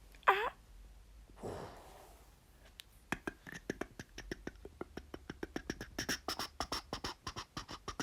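Cartoon-style sound effects: a short squeal that swoops down and back up, a breathy whoosh, then a rapid run of sharp clicks and taps at about eight a second that carries on to the end.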